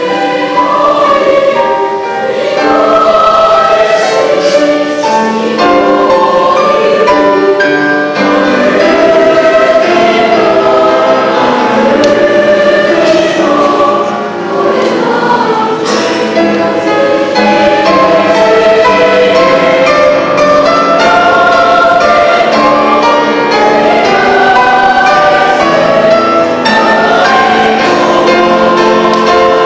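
A junior-high mixed three-part choir sings a slow, flowing Japanese choral song, with several voice parts sustaining and moving in harmony.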